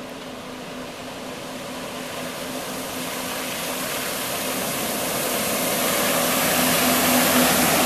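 Personal watercraft engine running at a steady speed while towing a water skier, growing steadily louder as it approaches. A rising hiss of spray and wake comes with it.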